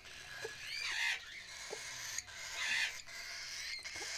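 Young hand-fed parrots chirping: short arched calls about a second in and again past the middle, with a few light knocks.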